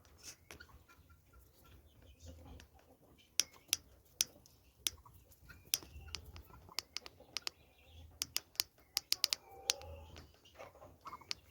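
Farm poultry with a few soft clucks over a scatter of sharp, irregular taps that come thickest from about three to ten seconds in.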